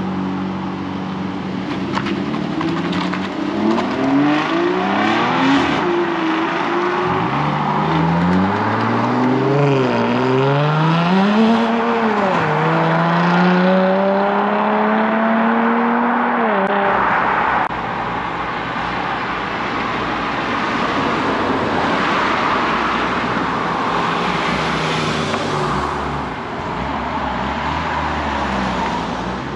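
A car engine revving hard as the car pulls away, its pitch rising and falling repeatedly. The sound cuts off abruptly about halfway through and gives way to steadier car engine and road noise.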